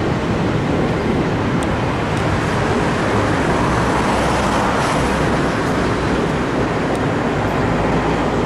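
A steam-hauled passenger train running past close by: a steady, loud rolling rumble from the train on the rails.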